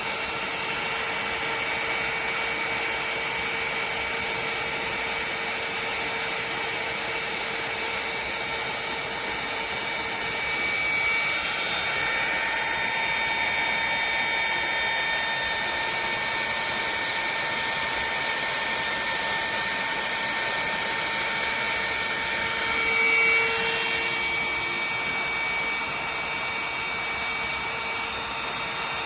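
SEEKONE 600 W mini heat gun running continuously, its small fan motor blowing hot air with a steady rushing noise and a steady whine. The sound swells slightly twice, about a third of the way in and again near the end.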